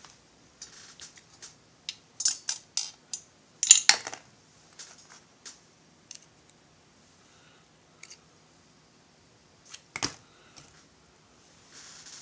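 Clicks and light knocks of small metal parts and tools being handled on a workbench, busiest a couple of seconds in, with one sharper knock near the end.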